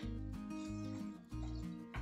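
Background music: held notes over a low bass line, changing about twice a second.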